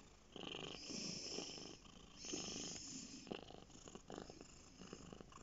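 A domestic cat purring close up, in repeated swells about a second long as it breathes in and out.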